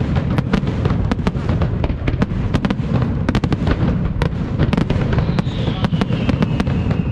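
Aerial fireworks display: a rapid, continuous barrage of shell bursts and crackling bangs, several a second, over a low rumble. A falling whistle joins in about five seconds in.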